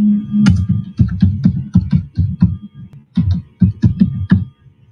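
Laptop keyboard typing: a quick run of close, sharp key clicks with a low thud under each, about four a second, pausing briefly near the middle, as a word is typed into a text editor.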